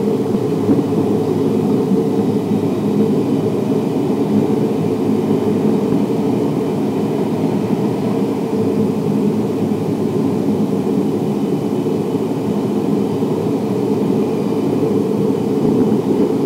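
JR West 323 series electric train running at steady speed, heard from inside a motor car: a steady rumble of wheels on rail, with a faint steady high whine from its Mitsubishi full-SiC MOSFET VVVF inverter and traction motors.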